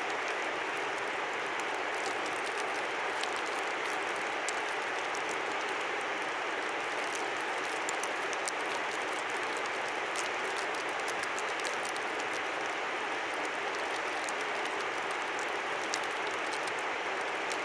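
Steady rushing of a river, even and unbroken, with many faint, light ticks scattered over it, thickest in the middle.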